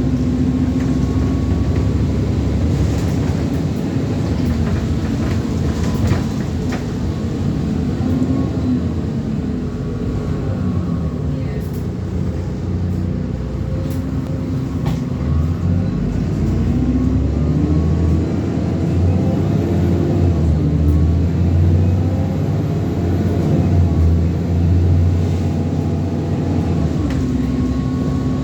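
Alexander Dennis Enviro400 double-decker bus on a Trident chassis, driving: engine and transmission note rising and falling several times as it pulls through the gears. A heavier low rumble builds in the second half, and a steady whine is heard at the start and again near the end.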